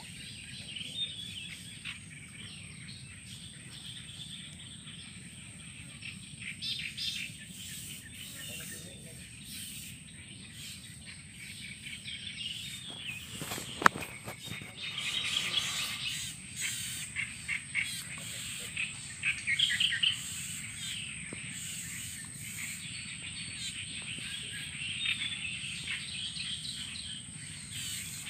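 Birds chirping and calling, with a steady high whine underneath and a single sharp click about halfway through.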